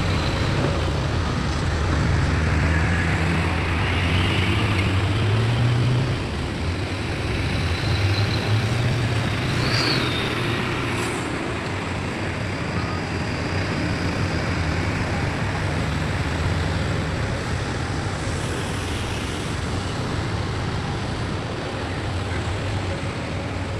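Heavy diesel engines of an excavator and dump truck running steadily with a low drone, with a brief high squeal about ten seconds in.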